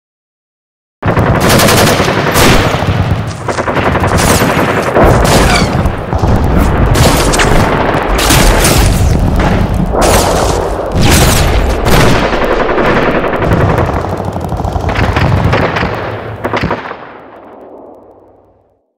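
Battle sound effect of rapid machine-gun fire mixed with other gunshots, dense and loud. It starts suddenly about a second in and fades away near the end.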